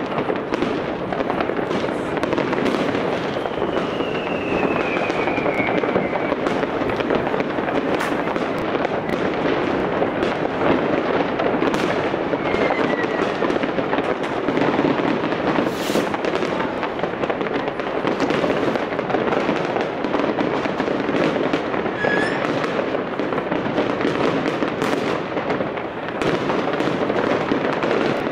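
A continuous barrage of fireworks and firecrackers: dense crackling and popping with many sharp bangs, and a few short falling whistles from whistling rockets.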